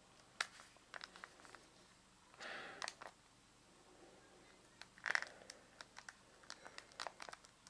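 Faint clicks of a Sony Ericsson W810i's navigation dial and keys being pressed, a run of short light taps as its menus are browsed, with a little handling noise.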